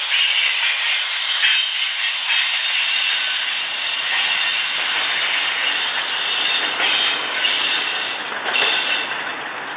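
Double-stack intermodal well cars rolling past, their steel wheels giving a steady hissing, scraping rail noise with a squeal that swells up several times in the second half.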